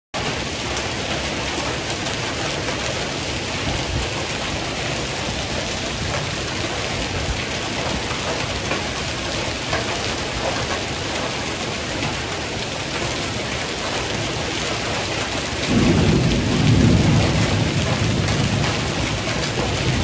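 Heavy thunderstorm rain pouring down in a steady hiss. About sixteen seconds in, a louder low rumble of thunder comes in and lasts to the end.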